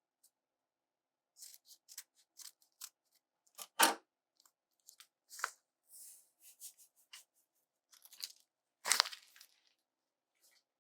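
Paper yeast packet being handled and torn open: scattered crinkling and tearing, with two louder knocks about four and nine seconds in.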